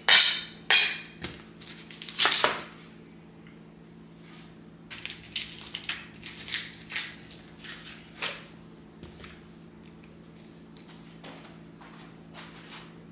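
Kitchen knife slicing an onion on a cutting board: a few separate cuts in the first couple of seconds, then a quicker run of cuts from about five to eight seconds in, fading to light taps.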